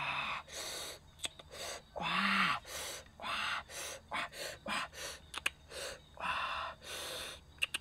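A person's breathy gasps and sharp exhales, repeated every half second to a second, with short mouth clicks and a brief low hum about two seconds in.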